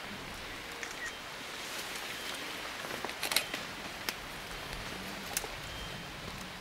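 Steady hiss of rainforest background with a cluster of sharp clicks about three seconds in and two more single clicks after, like snapping twigs or camera shutters.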